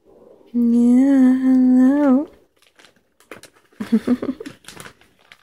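A woman's voice holding a long, sing-song hummed "hello" for under two seconds, its pitch lifting at the end. Then scattered crinkling and rustling of a plastic snack bag.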